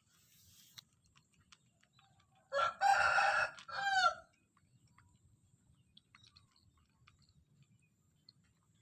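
A rooster crowing once, a cock-a-doodle-doo of about a second and a half in several notes, starting about two and a half seconds in.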